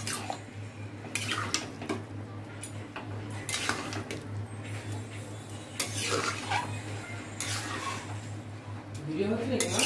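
Metal spatula stirring rice in water in a metal wok, scraping and clinking against the pan in short, irregular bouts.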